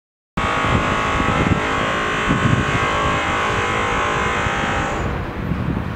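Outdoor city noise that cuts in abruptly after silence: a steady traffic rumble with wind buffeting the microphone, and a dense high whine over it that fades out about five seconds in.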